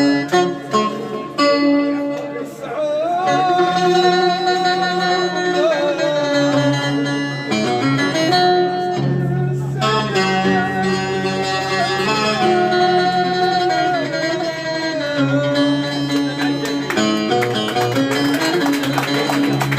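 Live music: plucked string instruments under a long-held, ornamented melody line that wavers in pitch.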